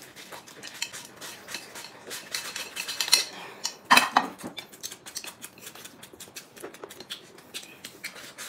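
Table-eating sounds: chopsticks and ceramic plates and bowls clicking and clinking, with slurping and chewing of noodles. One louder burst comes about four seconds in.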